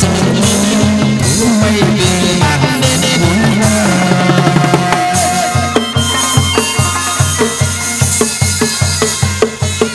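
Chầu văn ritual music played by an ensemble with a drum, with held pitched notes and a steady drum beat, about three beats a second, that comes to the fore about halfway through.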